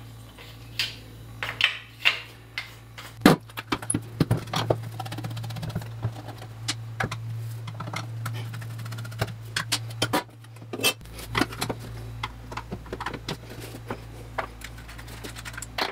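Irregular small clicks, taps and rattles of a screwdriver and loose metal and plastic parts as a coffee grinder's doser assembly is unscrewed and taken apart by hand, over a steady low hum.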